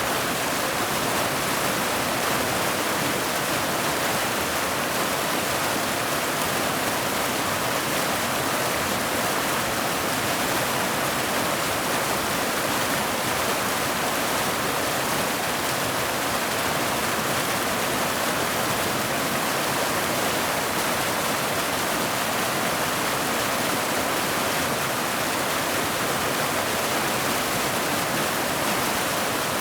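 Mountain waterfall: water cascading over boulders into a pool, a steady, even rush with little deep rumble.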